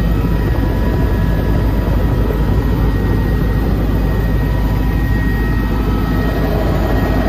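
Helicopter engine and rotor running steadily, heard from inside the cabin: a constant deep rumble with a steady high whine over it.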